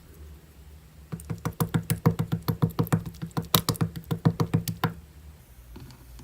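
A rapid, even series of knocks or taps, about five a second, lasting about four seconds and then stopping.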